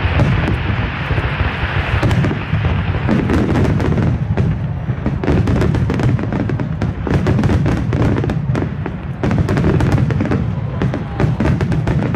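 Fireworks display: aerial shells bursting in quick succession, a dense run of booms and sharp cracks, with a crackling hiss over the first couple of seconds.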